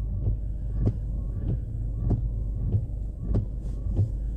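Car running, heard inside the cabin as a steady low hum, with a sharp regular tick a little under twice a second.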